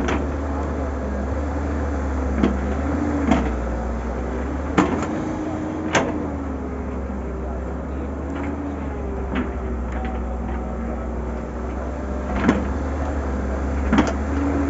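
Samsung wheeled excavator working: the diesel engine runs steadily with a hydraulic whine that rises and falls as the boom and bucket move, and sharp metallic knocks and clanks come about eight times as the bucket digs and swings.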